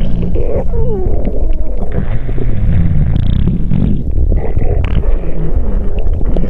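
Loud, unbroken stomach growling: a deep rumble with gurgles, a few of which slide up and down in pitch about a second in.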